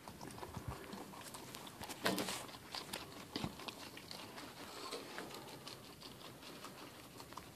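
Guinea pigs eating vegetables and shuffling about in their cage: an irregular run of small crunching clicks and rustles, the loudest about two seconds in.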